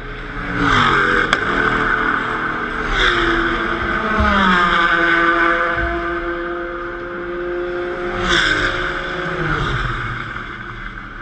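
Sports racing cars passing at speed on the front straight, three loud passes whose engine pitch falls as each goes by: near the start, about three seconds in, and about eight seconds in. A single sharp click sounds about a second in.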